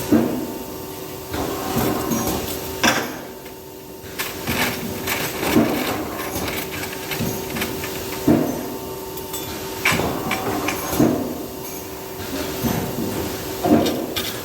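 Spot-welding press machine working through its cycles: metallic clanks and knocks every one to three seconds over a steady machine hum.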